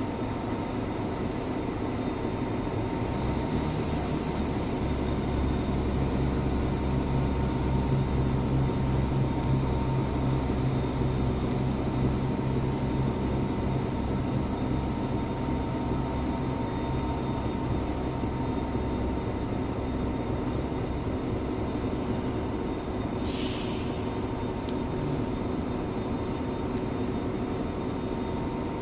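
Diesel multiple-unit trains moving through a station: a low engine drone swells a few seconds in and eases off after about twenty seconds, over a steady hum. A brief hiss of air comes near the end.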